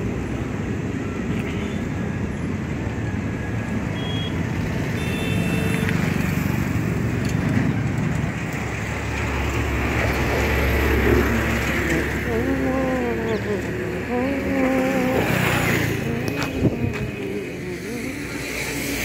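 Steady rumble and hiss of road traffic and wind at an outdoor road overbridge, getting a little louder in the middle. A person's voice is heard in the background in the second half.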